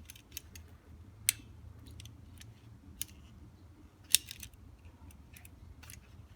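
Chevy Caprice door latch assembly handled and worked by hand, giving scattered sharp metal clicks, the loudest about four seconds in.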